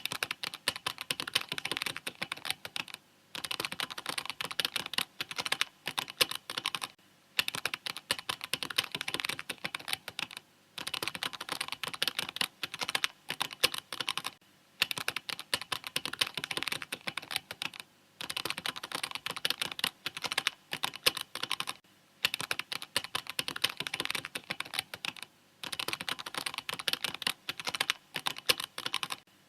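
Mechanical keyboard typing at a steady, fast rhythm of dense key clicks, broken every three or four seconds by a short pause.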